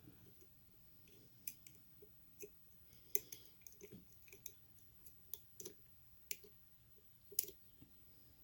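Lock picks working inside a Mul-T-Lock pin cylinder: faint, sharp clicks at irregular intervals, about ten of them, as the pins are probed and set.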